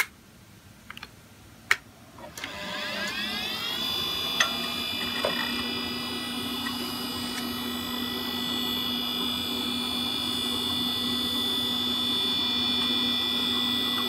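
Hard disk drive of an iMac G3 spinning up at power-on: a couple of clicks near the start, then a whine rising in pitch for about a second and a half that settles into a steady whine and hum, with faint ticks of the drive working. It is the sign that the machine, now fitted with a G4 CPU, is powering up and starting to boot.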